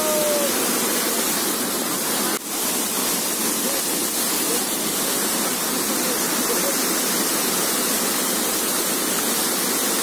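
A large waterfall in full flow: a steady, dense rush of falling and crashing water heard close up, with one momentary dip in loudness about two and a half seconds in.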